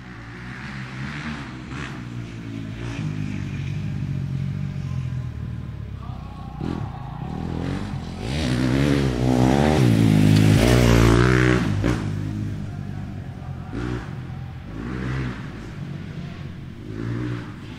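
Motorcycle engine being revved: the pitch rises and falls in repeated blips, building to its loudest, highest revs about halfway through, then dropping back with a few smaller blips.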